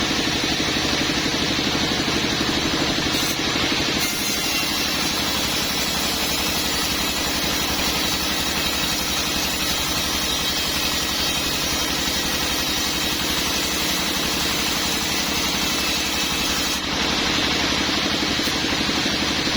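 Sawmill machinery running steadily with an engine-like drone. From about four seconds in until near the end a harsher hiss joins it, as of the saw blade cutting through teak.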